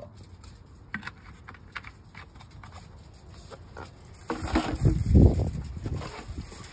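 Light knocks and clicks of bottles and plastic containers being handled and set down, then a louder low rumble about four seconds in that lasts under two seconds.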